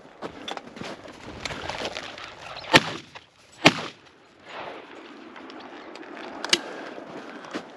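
Two shotgun shots a little under a second apart, fired at flushing chukar.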